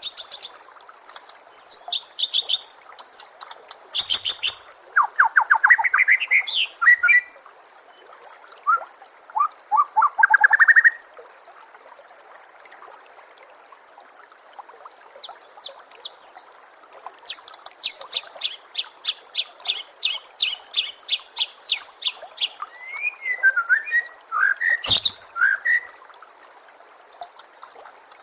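White-rumped shama (murai batu) singing: varied phrases of clear whistles, rising sweeps and fast rattling runs of repeated high notes, with short pauses between them. Steady trickling water runs underneath.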